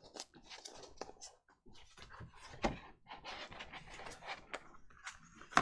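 Paper and card being handled and shifted about on a tabletop: irregular rustles, scrapes and small taps, with a sharper tap about two and a half seconds in.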